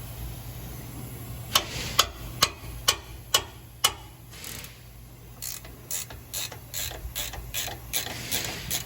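Ratchet wrench clicking as suspension bolts are worked loose. A run of sharp single clicks about two a second, a short scraping patch, then a faster, lighter run of clicks near the end.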